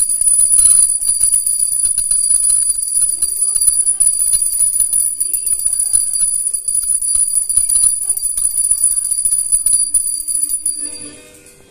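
Puja hand bell rung rapidly and continuously, a steady high ringing that stops about eleven seconds in.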